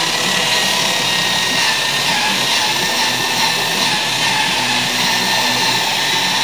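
Electric high-speed buffer with a wool polishing pad running steadily: an even motor whine over a high hiss.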